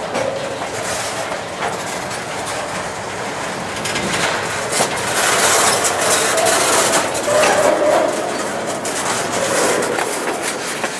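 Empty centerbeam flatcars rolling past, their steel wheels clicking over the rail joints, with a faint wheel squeal about six seconds in.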